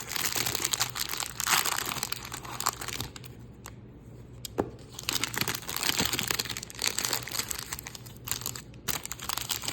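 Plastic wrapper of a baseball-card rack pack crinkling and tearing as it is pulled open, in irregular crackly bursts with a quieter stretch in the middle.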